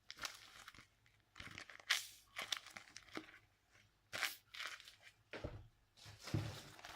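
Crinkling and rustling of paper and plastic in irregular short bursts as a homemade paper squishy, paper stuffed with plastic bag, is handled and squeezed.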